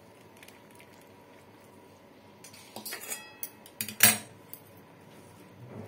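Stainless steel pot and bowl knocking and clinking together: a run of clinks starting about two and a half seconds in, one with a ringing metal tone, and the sharpest knock about four seconds in.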